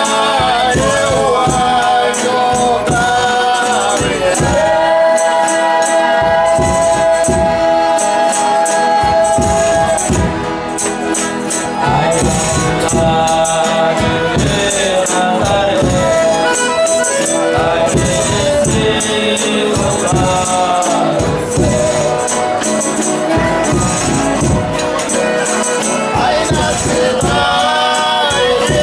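Folia de Reis group singing in several voices, holding long drawn-out notes together, over a steady beat of tambourine jingles and percussion.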